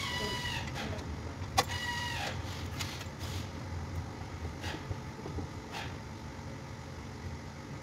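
Small electric motor of a power tool whining, then winding down in pitch and stopping; after a sharp click it gives a second short whine that also falls away. A few light metal clicks follow, over a steady low hum.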